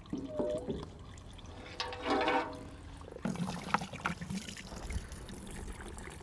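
Diesel fuel trickling and pouring out of a just-removed fuel filter/water separator into a bucket.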